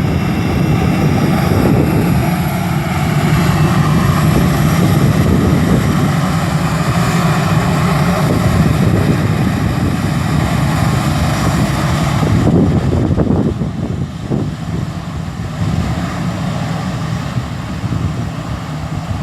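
The CFM56-5B turbofan engines of an Airbus A320-214 running steadily: a strong low hum with high whining tones and hiss. About twelve seconds in, the highest hiss drops away and the sound grows a little quieter.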